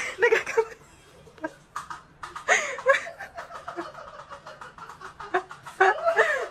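A person laughing and snickering in short bursts.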